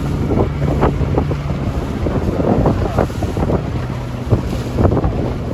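Wind buffeting the microphone in uneven gusts on an open boat on choppy water, over a steady low hum from a boat's outboard motor and the wash of waves.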